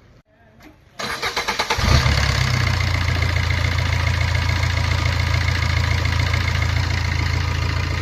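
Maruti Suzuki Ertiga engine cranked by the starter about a second in, catching within a second and settling into a steady idle. This is the first start after its worn timing chain was replaced.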